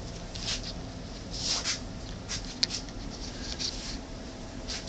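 Low steady hum in a small room, with scattered soft rustling and scraping sounds.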